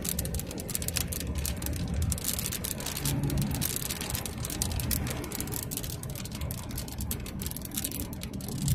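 Car driving on a gravel road, heard from inside the cabin: a steady low rumble of engine and tyres, with a dense, irregular scatter of sharp ticks striking the car.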